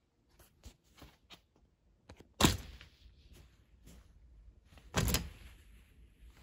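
Plastic clothes hangers clicking and knocking along a closet rod as shirts are pushed aside, with clothes rustling: a few light clicks, then two louder knocks about two and a half seconds apart.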